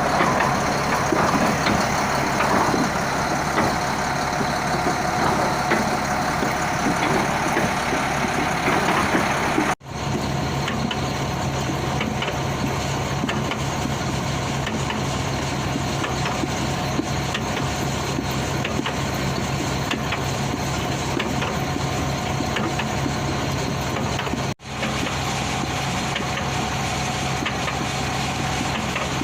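Shantui SD20-5 bulldozer's diesel engine running steadily. The sound drops out abruptly twice, about a third of the way in and again near the end.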